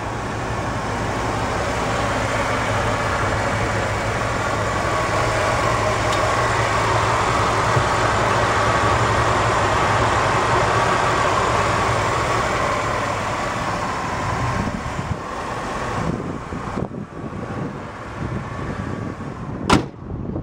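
A 1993 Cadillac Sedan DeVille's 4.9-litre port fuel-injected V8 idling steadily under the open hood, growing louder for the first several seconds and fading again. A single sharp click comes near the end.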